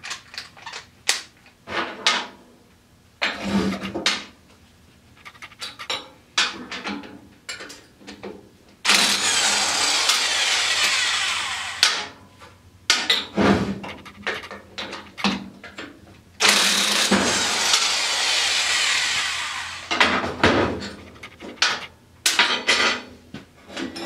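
Corded electric impact wrench hammering on a stubborn fastener on the ATV's rear axle hub. It runs in two long bursts of about three to four seconds, one around the middle and one later, with short trigger bursts and metal clanks between.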